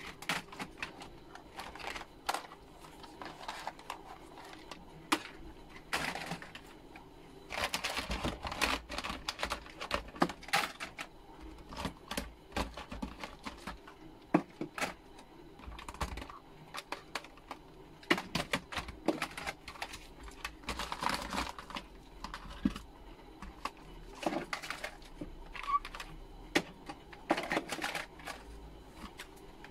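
Irregular plastic clicks and clatter of TV remote controls being picked up, shuffled through in a pile and their buttons pressed.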